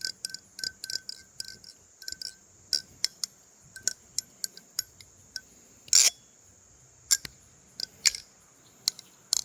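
Thomas Default balisong being flipped: a quick, irregular run of sharp metallic clacks as the handles swing round and strike the pins, many with a short glassy ring. The loudest clack comes about six seconds in.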